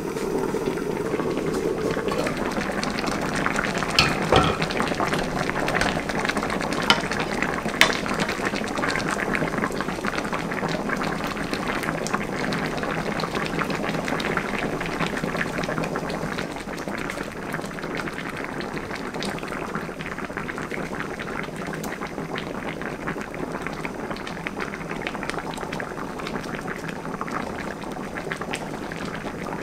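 Mackerel and aged-kimchi stew bubbling at a steady simmer in a stainless steel wok, a dense crackling of bursting bubbles in thick sauce. A few sharp clinks come about four and eight seconds in.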